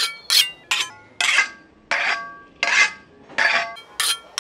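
Long shawarma knife being honed against a steel, steel scraping on steel with a ringing edge, about eight quick strokes at an uneven pace, some short and some drawn out.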